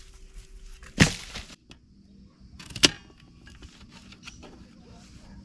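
Two loud, sharp cracks about two seconds apart, with smaller clicks and rustles around them, over a steady high-pitched hiss in the background.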